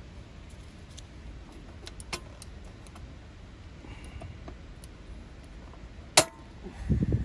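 Scattered light clicks and clinks of small hard objects being handled, with one sharp knock about six seconds in and a brief low rumble just before the end.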